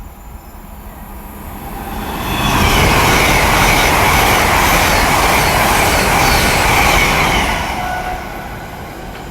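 GWR Class 800 train passing through the station: its noise builds over about two seconds, stays loud for about five, then dies away.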